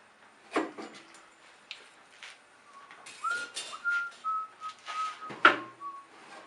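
Whistling: a run of held notes stepping up and down in pitch, starting about three seconds in, among several sharp knocks, the loudest a little before the end.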